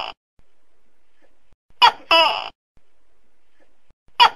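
Tokay gecko calling its two-note "to-kek": a short first note, then a longer second note. One full call comes about two seconds in; the end of the previous call is heard at the start and the next call begins just before the end.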